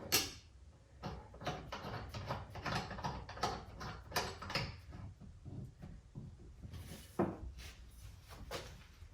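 Hand-work clicks, scrapes and rustles of a compression fitting being pushed and worked onto compressed-air line tubing, thickest in the first half and sparser later.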